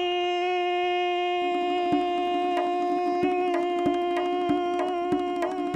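Background music: one long, steady held note, with soft, evenly spaced percussion taps coming in about a second and a half in.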